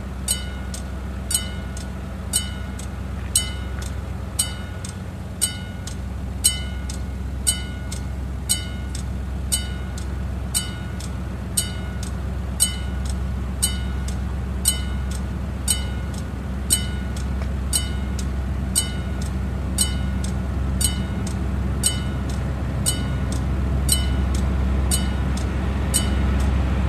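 Level crossing bell striking steadily about once a second, each strike ringing briefly. Under it, the low rumble of an approaching diesel train grows louder toward the end.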